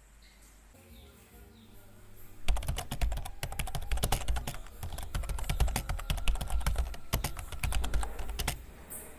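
Rapid, irregular clicking, many sharp taps close together over a low rumble, starting about two and a half seconds in and stopping shortly before the end. Faint high chirps are heard in the quieter opening.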